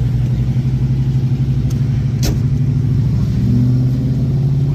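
A car engine running loud with a steady low rumble, rising slightly in pitch about three and a half seconds in as it is given a little throttle. A single sharp click a little past two seconds in.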